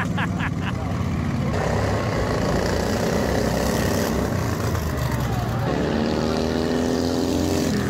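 Small engines of several racing lawn mowers running together, then revving up in the last couple of seconds, their pitch climbing steadily as they accelerate off the start.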